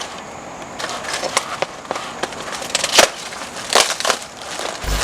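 Handling noise from speaker equipment being assembled: scattered sharp clicks and knocks with light crinkling, and a brief low thump near the end.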